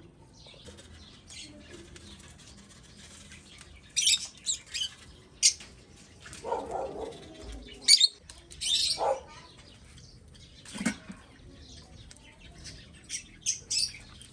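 Pet lovebirds giving short, sharp high-pitched chirps in scattered quick clusters, with one longer, lower call about halfway through.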